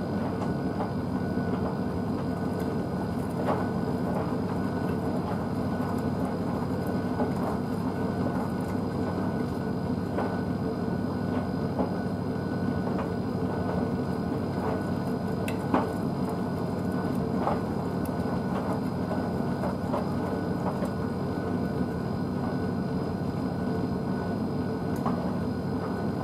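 Blomberg WNF9448 front-loading washing machine in the main wash of a 60° synthetics programme: the drum turning the wet load, water and clothes sloshing and tumbling over a steady motor hum with a faint high whine. Occasional soft knocks as the load drops.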